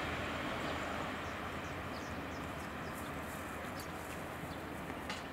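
Two-car KiHa 40 and KiHa 47 diesel railcar train running away into the distance, its engine and rail noise slowly fading, with birds chirping over it. A single short click comes near the end.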